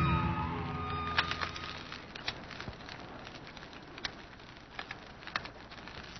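Music fades out over the first two seconds, leaving a faint crackling hiss with scattered sharp clicks.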